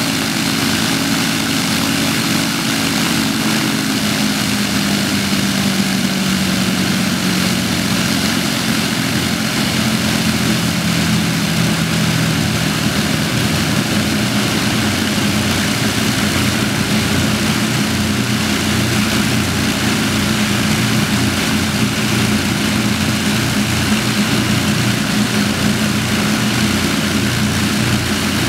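Avro Lancaster bomber's four Merlin V12 engines running together on the ground, propellers turning. The engine note shifts slightly in the first dozen or so seconds, then holds steady.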